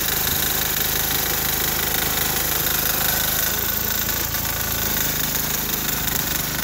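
6 hp single-cylinder diesel engine of a repowered Sears Suburban garden tractor running steadily while the tractor plows snow, its note shifting slightly about halfway through.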